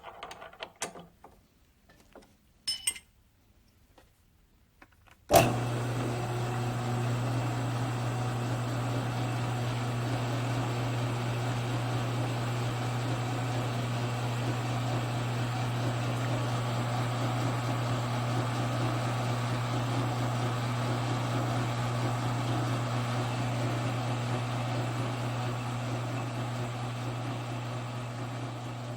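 Shop machine's electric motor switched on about five seconds in, then running with a steady hum. A few light knocks and clicks of handling come before it starts.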